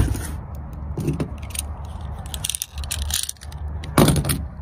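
Cardboard box being handled on a pickup's ribbed plastic bed liner: a knock at the start, then scraping and rattling clicks, and a louder knock about four seconds in.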